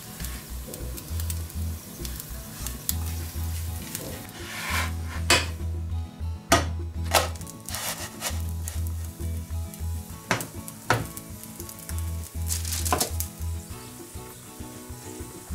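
Flatbread sizzling in butter in a frying pan, with several sharp clicks of a metal utensil against the pan as the bread is turned over in the middle stretch.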